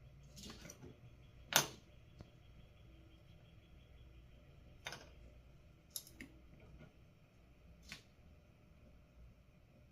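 Sparse light clicks and taps of small hand tools against the circuit board and workbench during soldering, over a low steady hum. The sharpest click comes about a second and a half in, with a few fainter ones spread through the rest.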